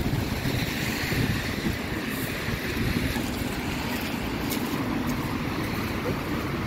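Steady street traffic noise from cars on a wet road, with a low rumble of wind on the microphone.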